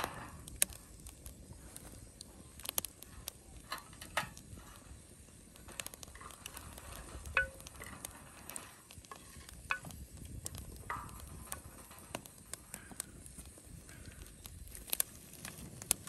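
Open wood fire crackling under a pot, with scattered sharp snaps and pops. Light knocks and scrapes of a wooden spoon stirring in a glazed ceramic pot come and go among them.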